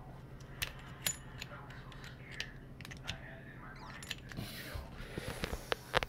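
Handling noise: scattered small clicks and taps as the phone is moved about, over a faint steady low hum, with a quick run of louder clicks near the end.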